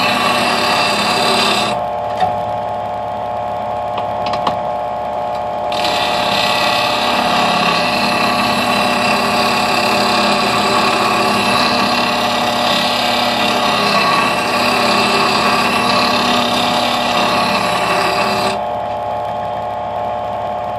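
Variable-speed bench grinder running at low speed with a steady hum, while a curved lathe gouge held in a sharpening jig grinds against the wheel with a harsh hiss. The grinding drops out for about four seconds near the start and stops again near the end, while the motor keeps running.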